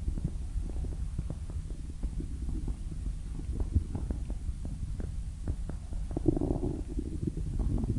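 A blue fox's stomach growling: a steady low rumble dotted with small clicks, with a louder gurgle about six seconds in.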